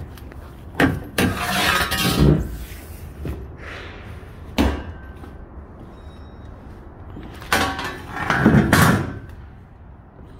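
Three sharp slams or knocks a few seconds apart. The first and last are each followed by a second or so of loud rattling and scraping.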